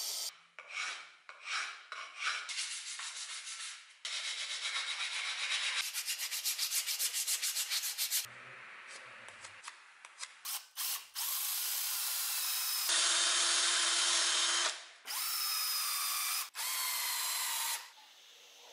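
A birch axe handle being sanded and rasped by hand, heard as a string of short scraping passages that each start and stop abruptly. One passage has a fast, even run of strokes.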